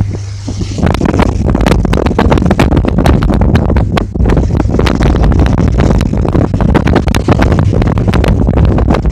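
Wind buffeting the microphone in rapid, irregular gusts over a steady low rumble, aboard a tugboat at sea.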